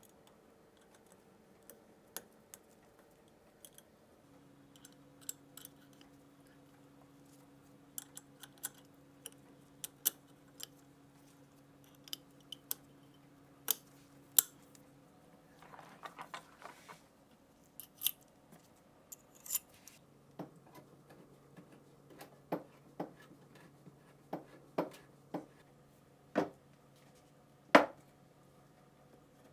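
Small metal parts being handled during a machine gun rebuild: irregular sharp clicks and light knocks, with a short scraping sound about halfway through. A faint steady hum runs underneath.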